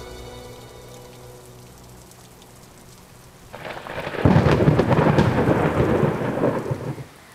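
Thunderstorm: a soft rain hiss, then a thunderclap about three and a half seconds in that swells into a loud rumble for about three seconds and cuts off suddenly.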